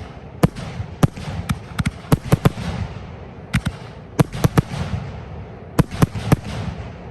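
Aerial fireworks bursting: loud, sharp bangs in irregular clusters over a crackling rumble. The last cluster comes about six seconds in, and the sound then dies away.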